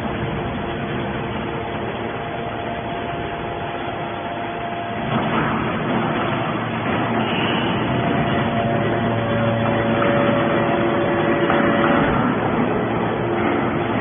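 Q43-3150 hydraulic scrap shear running: a steady machine drone with several held tones over it, growing louder about five seconds in.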